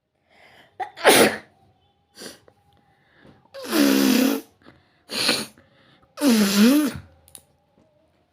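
A woman sneezing repeatedly: four loud sneezes in about six seconds, two of them with a voiced "achoo", and a few softer breaths between them.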